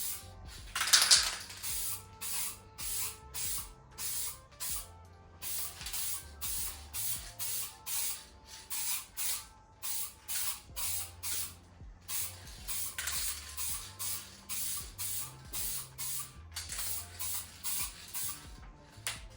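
Aerosol can of etch primer spraying in many short hissing bursts, about two a second, with a few longer sprays among them. The can is nearly empty and runs out.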